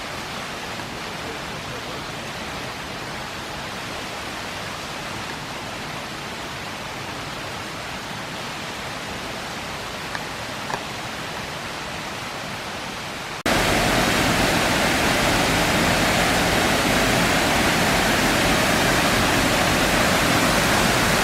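Steady rush of a river and waterfall. About thirteen seconds in it jumps suddenly much louder and fuller.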